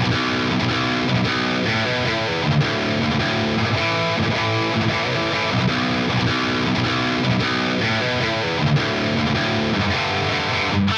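Distorted electric guitar playing a riff, amped by the Helix Native amp simulator and run through a single OwnHammer 4x12 Recto cabinet impulse response (V70B speaker) in the Two Notes Torpedo Wall of Sound plugin. The tone is dry, with its reverb, EQ and exciter switched off.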